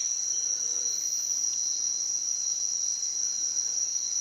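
Nocturnal rainforest insects calling in a steady, unbroken high-pitched chorus.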